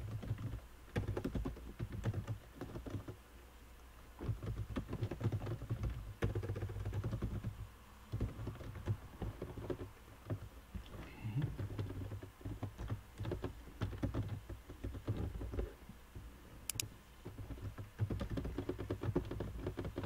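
Typing on a computer keyboard: fast runs of keystrokes broken by short pauses.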